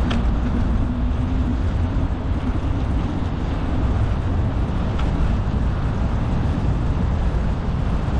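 Steady low rumble of a camera riding on a bicycle along a paved path: wind buffeting the microphone over the sound of the tyres rolling. A faint tick comes about five seconds in.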